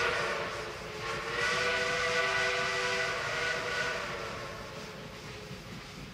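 Steam locomotive whistle sounding several tones at once: the end of one blast, then a longer blast that fades away, over steady train running noise.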